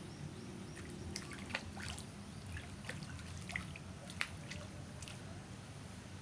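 Hooked Mozambique tilapia splashing at the surface of a small pond as it is reeled in: a run of small, sharp splashes and drips, the sharpest about four seconds in.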